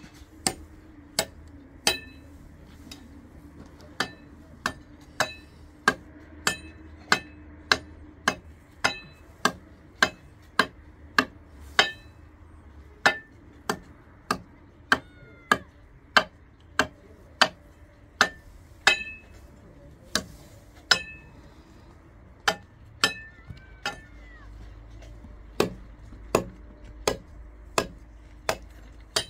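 Hammer blows in a long series, roughly one every half to three-quarters of a second with a few short pauses; each blow is a sharp strike with a brief metallic ring.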